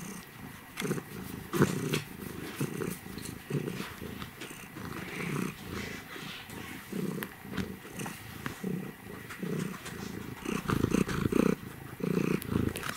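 Domestic cat purring close up while being petted, in a run of low pulses about twice a second, loudest near the end.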